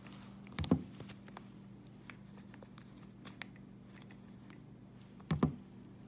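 Nest thermostat clicking as its ring is turned and its face pressed: a run of faint ticks and short high blips, with two louder double clicks, about half a second in and near the end, over a steady low hum.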